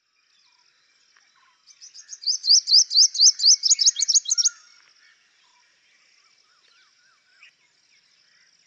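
A bird singing a quick run of sharp, sliding high notes, about five a second, that starts near the two-second mark and stops about two seconds later. A faint steady high-pitched note lies behind it throughout.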